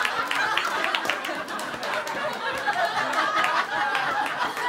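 Live audience laughing at a joke: a steady wash of crowd laughter.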